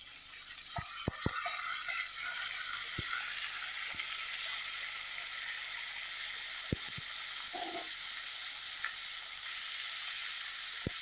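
Soaked chana dal frying in hot oil in an iron kadai, a steady sizzle that grows louder about two seconds in as the wet lentils hit the heat. A few light knocks of the spatula against the pan come in the first second or so, and one more in the middle.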